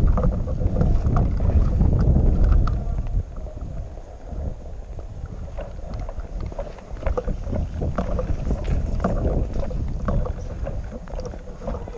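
Wind buffeting the body-worn camera's microphone, heaviest in the first three seconds, with irregular footsteps crunching through snow.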